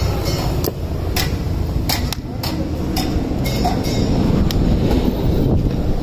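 A machete chopping the husk of a fresh coconut in a run of sharp knocks about every half second, over a steady rumble of street traffic.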